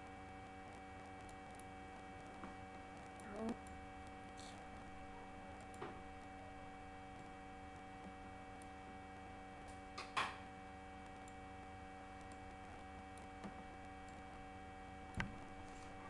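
Steady electrical hum with several fixed tones, broken by a few faint, short clicks and knocks, the loudest about ten seconds in.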